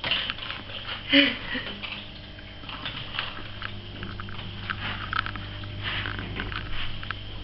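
Ragdoll kitten playing: scattered light clicks, scratches and rustles of small paws and teeth, with one louder short sound about a second in.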